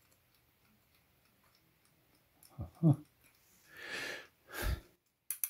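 Small handling sounds while a knob is fitted to a key-wind alarm clock. About three seconds in comes a short grunt through the nose, then a breath and a light knock. Near the end a quick run of small clicks begins as the knob is twisted on.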